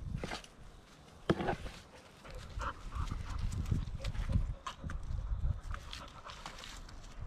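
Small three-pronged hand cultivator scratching and raking through loose potting soil in a wooden raised bed, with irregular scrapes and a few sharp knocks.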